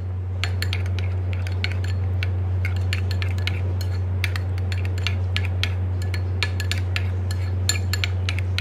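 Metal spoon stirring a thick mayonnaise sauce in a glass bowl, clinking and scraping against the glass several times a second, over a steady low hum.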